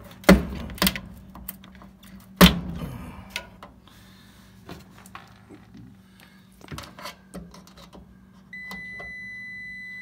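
Sharp clicks and knocks of wire connectors and hands working at an electric dryer's thermal safety thermostat, the loudest about a third of a second and two and a half seconds in. About eight and a half seconds in, a multimeter's continuity beep starts as a steady high tone, the sign that the thermal safety is closed.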